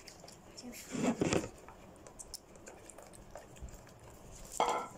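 Faint clicks and rustles of eating and handling snacks at a table, with a short murmur of a voice about a second in.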